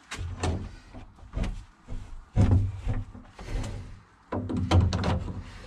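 Steel hasp on a wooden door being handled and swung, giving several bursts of metallic clanks and rattles with dull thuds from the door.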